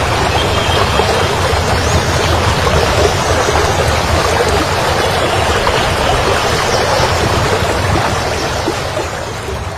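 Fast mountain river rushing over rocks in a steady, loud wash, fading out near the end.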